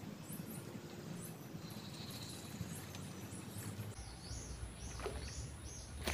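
Outdoor wetland ambience: short high-pitched chirps repeat about three times a second over a steady hiss. About four seconds in, the chirps drop a little in pitch and a low rumble comes in.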